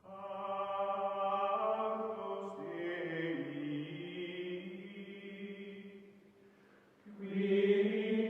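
Closing music of long, held chant-like vocal notes. The notes fade away about six seconds in, and a new held chord starts about a second later.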